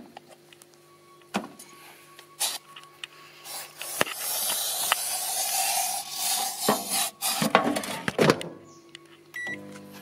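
Microwave oven running with an aerosol can inside, a faint steady hum under scattered sharp pops and cracks. A loud hissing rush fills the middle few seconds, and a short beep sounds near the end.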